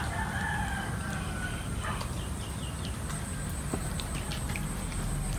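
A rooster crowing in a drawn-out call of about two seconds, followed a second later by a few short clucks.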